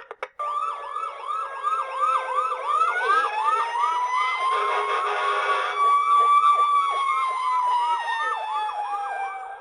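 Toy fire truck's electronic siren sound effect: a fast yelp repeating about three times a second over a slower wail that rises, holds and then falls, with a short burst of hiss around the middle, cutting off suddenly at the end.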